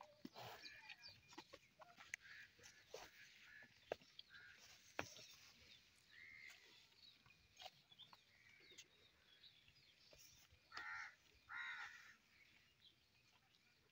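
Faint farmyard sound: a hen clucking and calling now and then, with two louder calls close together late on, over scattered soft clicks.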